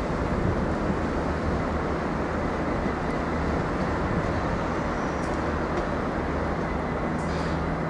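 Diesel multiple unit's engines droning steadily with a low hum over a rumbling haze as the train pulls away.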